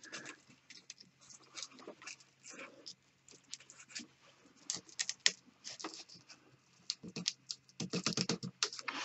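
A metal fid and fingers working between the strands of a thick three-strand fibre rope: scattered scratchy clicks and rustles, growing denser near the end.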